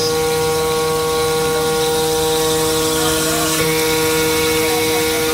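CNC glass working center's spindle grinding a glass sheet under water coolant spray: a steady motor whine over the hiss of spraying water.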